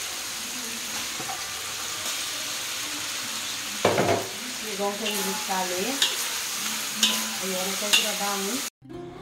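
Ground chilli-and-turmeric spice paste sizzling as it fries in oil in a wok while raw grouper pieces are added and stirred in with a metal spatula. There is a louder burst about four seconds in, and a fainter pitched sound comes and goes behind the sizzle after that. The sound cuts off just before the end.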